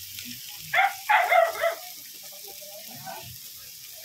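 A dog barking, a quick run of sharp barks about a second in.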